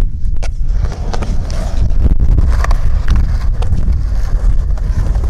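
Skateboard wheels rolling on concrete, a steady low rumble mixed with wind buffeting the microphone. A few sharp clicks and knocks from the board come through along the way.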